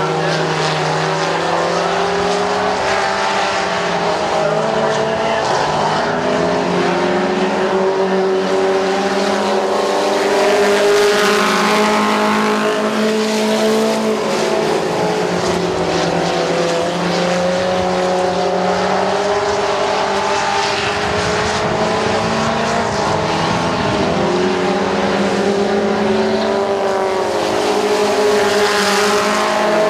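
Several race truck engines running hard on a dirt oval, overlapping as the trucks lap. Their pitch keeps rising and falling as they speed up on the straights and back off into the turns.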